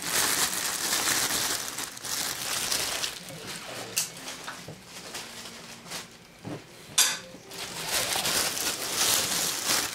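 Clear plastic wrap crinkling and rustling as it is pulled off a cordless drill by hand, with a couple of sharp crackles.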